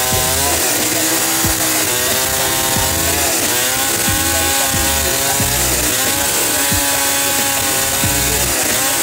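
Gasoline chainsaw at full throttle cutting through a felled log, its engine pitch dipping briefly and recovering about four times as the chain bites into the wood.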